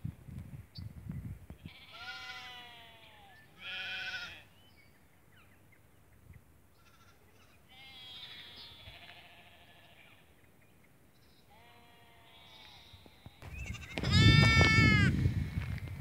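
Shetland sheep bleating: a few wavering calls spread over several seconds, then a much louder, longer bleat near the end.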